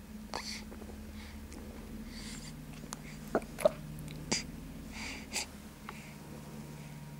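Soft, snuffly breaths and short puffs of air from a young baby, several times, with a few light clicks and a steady low hum underneath.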